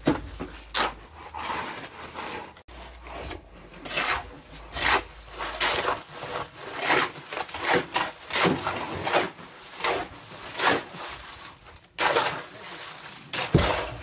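Shovels scraping and turning wet concrete mix on hard ground as it is mixed by hand: repeated rough scrapes, about one or two a second.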